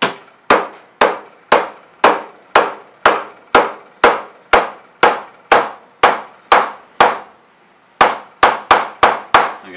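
Mallet blows hammer-forming the edge flange of a 0.025 aluminum wing rib over a wooden form block: sharp strikes with a short ring, about two a second, then after a brief pause a quicker run of about six.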